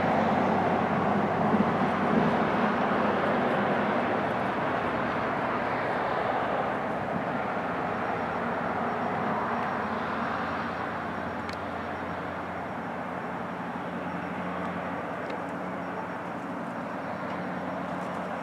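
A steady distant engine drone that slowly fades away.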